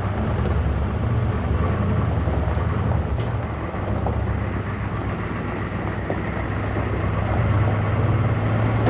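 International S1600 truck's engine running steadily while pulling a trailer loaded with logs, a low drone with road noise; its pitch steps up about seven and a half seconds in.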